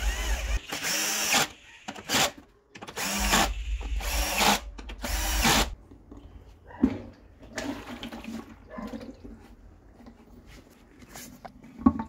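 Cordless drill-driver with a socket bit running in about five short bursts on the bolts of a washing machine drum's metal spider. Afterwards come quieter knocks of hands handling the plastic drum and spider, with one sharp knock near the end.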